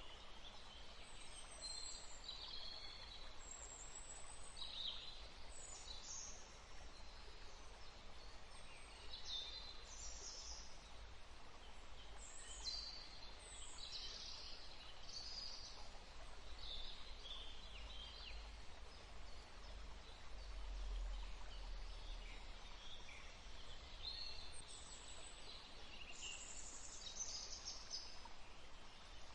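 Many short, high-pitched bird calls and chirps, some sliding in pitch, scattered throughout over a faint background hiss, with a low rumble swelling slightly about two-thirds of the way in.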